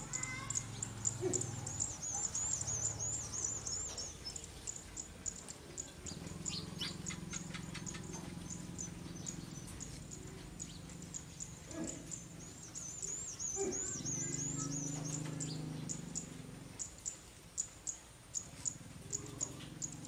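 Small birds chirping, with a quick high warbling trill twice, a few seconds in and again past the middle, and scattered short chirps in between. A low hum swells and fades in the background.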